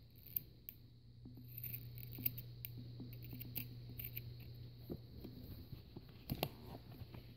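Fiskars scissors snipping through a rubber neck seal: a run of faint small clicks and cuts, with a louder cluster about six seconds in.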